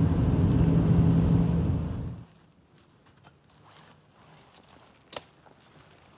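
Steady cabin rumble of a Ford Maverick pickup under way, engine and road hum, that cuts off abruptly about two seconds in. Near quiet follows, with a few faint ticks and one sharp click about five seconds in.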